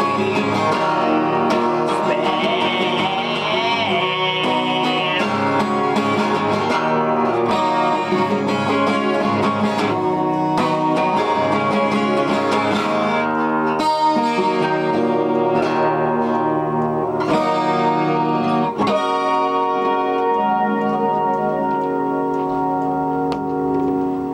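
Music: an instrumental stretch of a song led by strummed guitar, in a country or bluegrass style, dropping slightly in level near the end.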